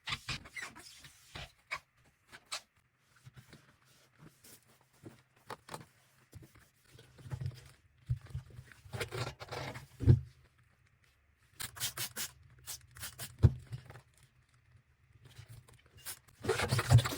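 Irregular scraping and rubbing as a washing machine's rubber door seal is cleaned, in short strokes with pauses between them. There are a couple of sharp knocks, and the rubbing grows denser and louder near the end.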